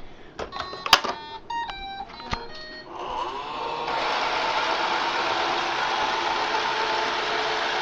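A few clicks and short tones, then about three seconds in a Roomba robot vacuum's motors spin up with a rising whir and settle into a steady running hum. The robot is starting off again to retry docking.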